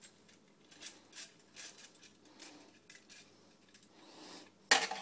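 Hand-cranked rotary egg beater being handled and turned, its metal gears and beaters giving scattered light clicks and clinks, then a sudden louder clatter near the end.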